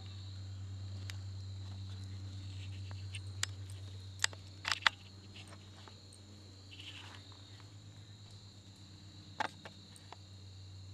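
Crickets chirring steadily in one high tone over a low, steady hum. A few sharp clicks come a little before the middle, and one more near the end.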